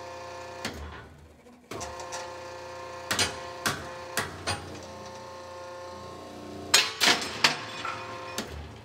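Hydraulic guided-bend test press running with a steady hum, which drops out briefly about a second in, as its ram forces a welded 3/8-inch steel test coupon down into the die. Sharp metallic ticks and cracks come as the strip bends, a few around the middle and a cluster near the end. This is a bend test that stretches the weld to bring out any flaw or trapped slag.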